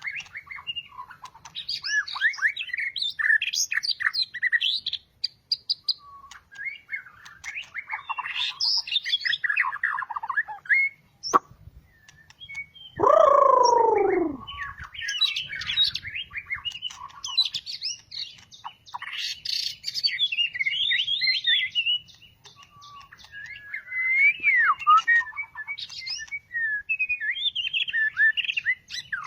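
White-rumped shama singing in varied phrases of clear whistles and rapid trills with short pauses between them, the song of a bird just through its moult. About halfway through comes one loud, drawn-out falling note.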